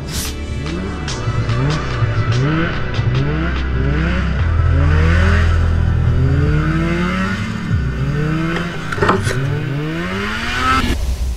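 Snowmobile engine revving up and down over and over as the sled is ridden through deep powder, with a single sharp knock about nine seconds in.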